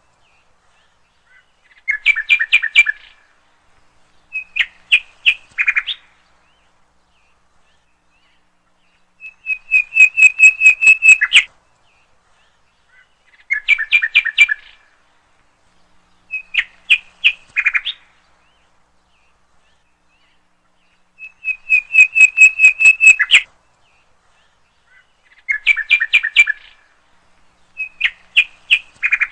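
Bird-like chirping: bursts of rapid high chirps, each phrase one to two seconds long, in a sequence that repeats about every twelve seconds, as a looped backing sound.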